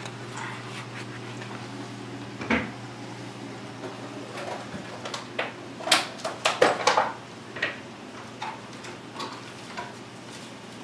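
A scattering of sharp clicks and knocks from hard objects handled at the rim of an open reef aquarium: one about two and a half seconds in, then a quick cluster of louder knocks around six to seven seconds in, with a few lighter ones after. A steady low hum runs underneath.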